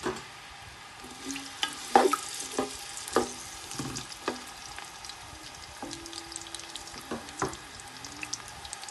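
Sliced onions sizzling in hot oil, with a steady hiss. A spatula stirring them knocks against the pan about a dozen times at irregular intervals.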